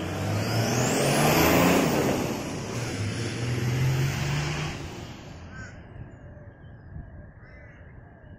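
Nissan RD28 straight-six diesel with compound turbochargers driving past: a low engine note with a high whistle that rises and falls, loudest a second or two in, then fading away after about five seconds.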